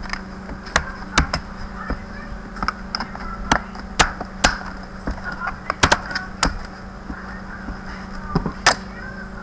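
Sharp, irregular plastic clicks and taps from fingers pressing and handling a Compaq CQ45 laptop's plastic bottom case, about a dozen in all, the loudest near the middle.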